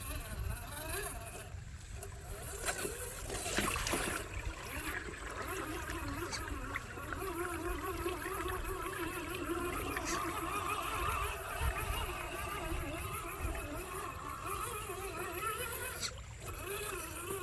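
Radio-controlled off-road car driving through water: its motor whines, the pitch wandering up and down with the throttle, amid splashing and gurgling water.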